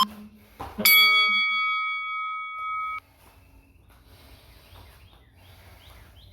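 Workout interval timer going off: a single electronic bell-like chime about a second in that rings for about two seconds and then cuts off abruptly, marking the end of a 20-second exercise interval. Two short thuds come just before it.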